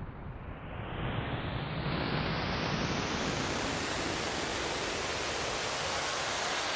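A rising whoosh of filtered noise, a sound-effect riser: the hiss climbs steadily brighter over several seconds, then holds loud and even.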